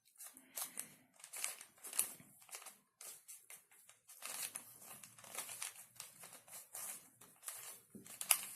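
Plastic Rubik's cube being turned by hand: a run of quick, irregular clicks and scrapes as its layers are rotated.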